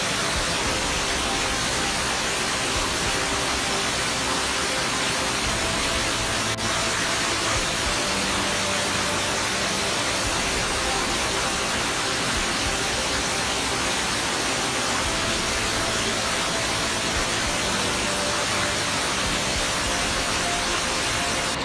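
Mountain stream cascading over rocks: a steady, even rush of white water.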